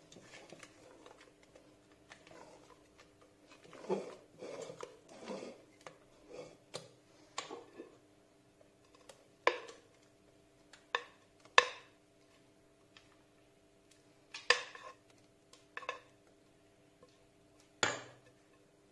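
Spatula scraping and knocking against a stainless-steel mixing bowl as a mousse mixture is stirred and folded: soft scrapes in the first half, then several sharp separate knocks in the second half.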